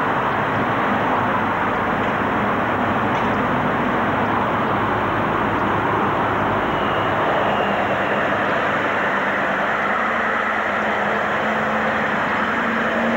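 Heavy lorry diesel engines running close by, a steady loud noise. A lower engine note comes through more clearly in the second half as a cab passes near.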